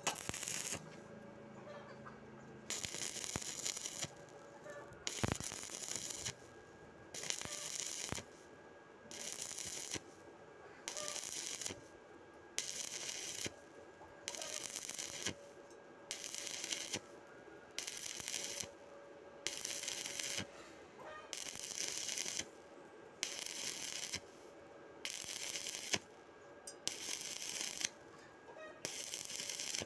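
Stick-welding arc on steel plate, crackling and hissing in on-off bursts about a second long, repeating about every two seconds.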